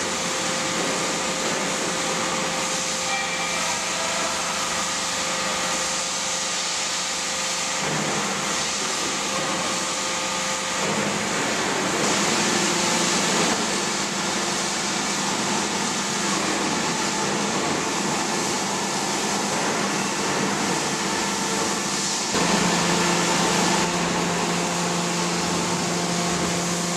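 Aluminium smelter rod straightener running: a steady mechanical hiss and hum with a few steady tones. A low drone drops out about 8 seconds in, comes back near 11 seconds, and gets louder about 22 seconds in.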